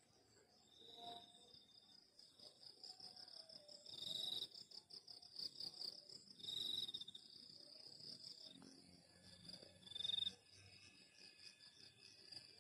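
Crickets chirping: a steady, rapidly pulsing high trill, with short, louder trills from another insect about every three seconds.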